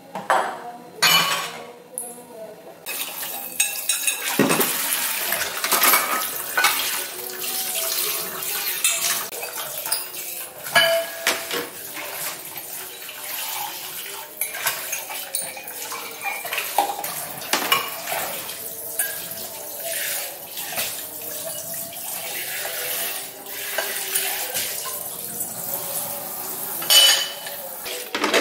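Dishes being washed by hand at a stainless steel kitchen sink. A few clinks of glass and crockery come first, then the tap runs steadily from about three seconds in while bowls and mugs clink against each other and the sink. The sharpest clink comes near the end.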